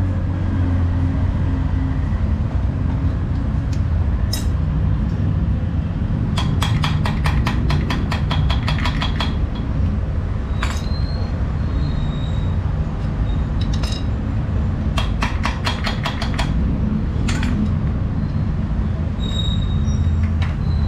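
Steady low background rumble, with two runs of rapid, even clicking of a ratchet wrench at about seven clicks a second, each lasting two to three seconds, and a few single metallic clicks and short rings of metal in between.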